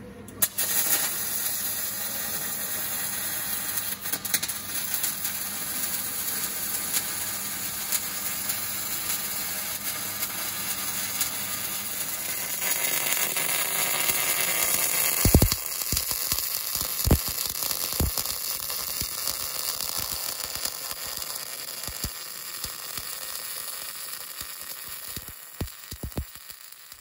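Robot-held MIG welding torch arc crackling and sizzling steadily on sheet steel, starting about half a second in and growing louder past the middle, with a few sharp pops of spatter.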